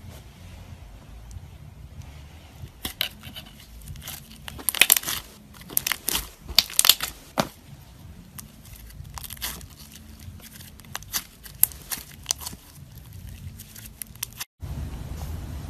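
Clear glitter slime being worked with a straw and squeezed in the hands, making a run of crackles and pops, loudest a few seconds in.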